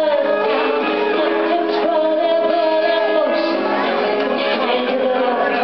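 Live band music with a woman singing lead into a microphone over electric guitar and violin, in a hip hop style.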